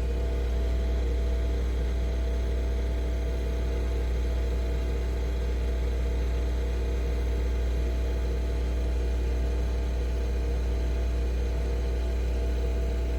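Nespresso Vertuo Pop+ coffee machine running a brew cycle: a steady motor-and-pump hum with a strong low drone, from the machine spinning the capsule as it brews.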